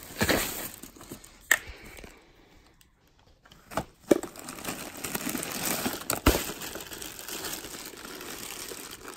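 Plastic packaging crinkling and rustling as items are handled and shifted in a woven straw basket, with a few sharp knocks among them.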